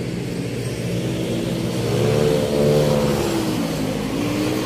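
Traffic passing on the road below, with one motor vehicle's engine rising in pitch as it accelerates and then falling away, loudest about halfway through, over a steady low rumble of traffic.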